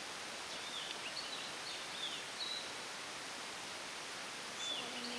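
Forest ambience: a steady hiss with scattered short, high bird chirps and whistles.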